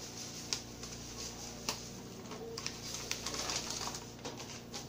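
Plastic packaging crinkling in irregular crackles as tapioca starch is poured from its bag into a plastic bowl and the bag is handled.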